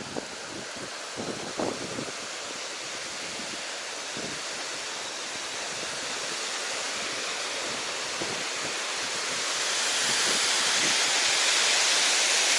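Water rushing out of a dam's release, a steady rush that grows louder over the last few seconds.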